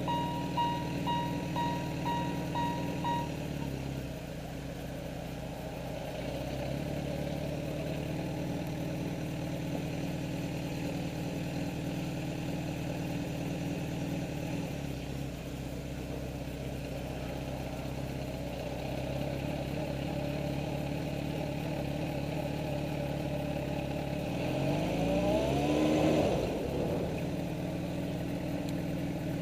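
Motorcycle engine idling, with a regular electronic beeping for about the first three seconds. Roughly twenty-five seconds in the engine revs up, its pitch rising, then settles back to idle.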